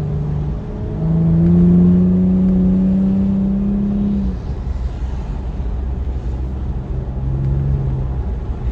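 Infiniti's VQ35HR V6 through a Manzo stainless catback exhaust, accelerating hard after a downshift. From about a second in, the exhaust note climbs steadily for some three seconds, then drops back to a lower, quieter steady note.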